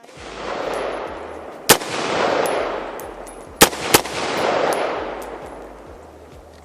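Three AR-15-pattern rifle shots from a Smith & Wesson M&P15 Sport II, the last two in quick succession, the rifle now cycling after a factory bolt replacement. Between the shots come long rising and fading rushes of noise.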